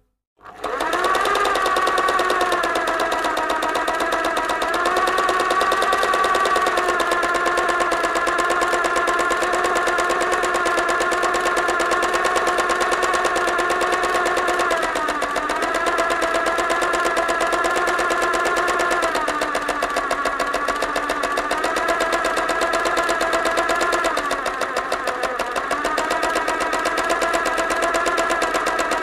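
Sewing machine running fast: a steady whine over a rapid, even clatter of stitches, starting after a brief gap at the very beginning. Its speed dips and recovers a few times in the second half.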